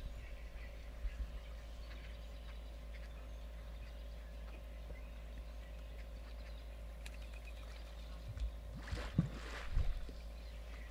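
Water splashing and sloshing around African elephants wading in a waterhole, with a few louder splashes about nine seconds in, over a steady low rumble.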